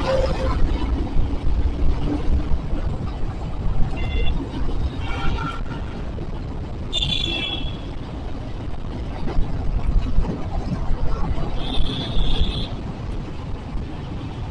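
Busy city road traffic heard while riding along, with a steady low rumble of engines and wind. Several short vehicle horn honks cut through, the strongest about seven seconds in and again near twelve seconds.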